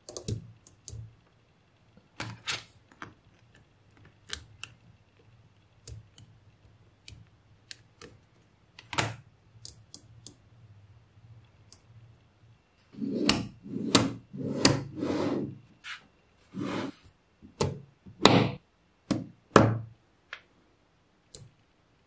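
Small magnetic balls clicking and snapping together as they are handled and built into a shape: scattered sharp clicks at first, then a run of longer, louder clattering rattles a little past halfway.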